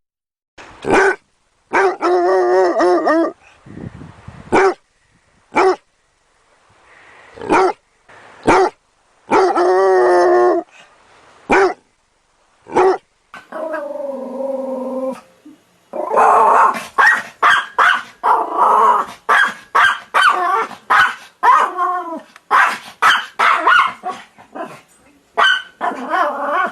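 Dogs barking: spaced single barks, with two drawn-out pitched calls about a second long each. After about sixteen seconds the barking turns into a rapid, continuous volley.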